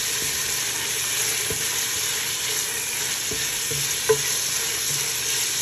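Beef cubes sizzling as they brown in hot oil in a pot, a steady frying hiss. A wooden spoon stirs the meat, with one sharp knock against the pot about four seconds in.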